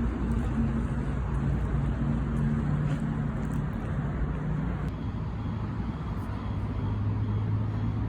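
A road vehicle's engine running steadily over road noise, its hum shifting to a lower pitch a little past halfway.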